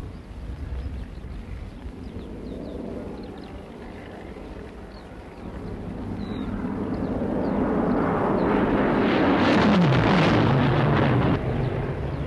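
Piston-engined fighter aircraft (Spitfires) fly low overhead: a drone that swells to its loudest about ten seconds in, drops in pitch as they pass, and then carries on as a lower, steadier hum. Faint, short, high bird chirps sound all the while.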